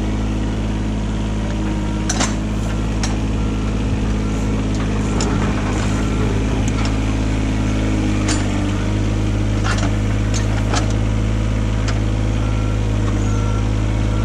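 1998 Komatsu PC15 mini excavator's diesel engine running steadily as the machine swings its boom and tracks onto steel ramps, with a few sharp metallic clanks.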